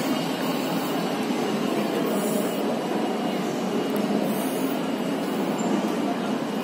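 Escalator running steadily, heard while riding it down, over the even background noise of a large airport terminal hall. A faint steady high tone sits over the noise throughout.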